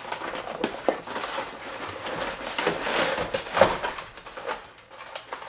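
Hands rummaging inside a cardboard shipping box: continuous rustling and crinkling of packing material with many small clicks and knocks, loudest about three and a half seconds in.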